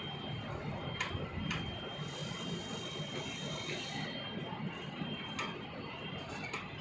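Hand-cranked winch of a 3 m manual telescopic light-tower mast being wound to raise the mast: steady gear and ratchet noise with a few sharper clicks.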